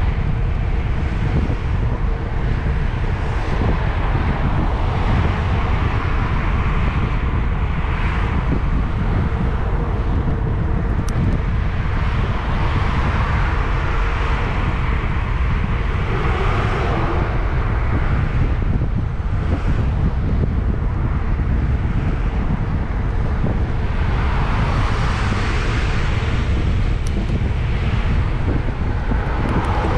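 Wind buffeting the microphone of an action camera on a moving bicycle: a steady low rumble. Over it, a hiss of road or traffic noise swells and fades a few times, most strongly around the middle and again near the end.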